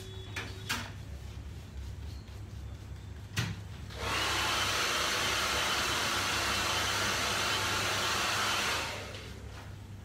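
A hair dryer blowing steadily for about five seconds. It comes on suddenly and dies away near the end. A few short clicks come before it.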